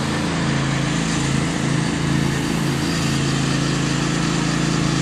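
Riding lawn mower engine running hard while racing on a dirt track, its pitch dipping briefly a few times.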